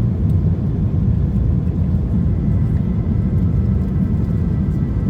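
Airliner cabin noise in flight: the steady low rumble of engines and airflow heard from inside the passenger cabin.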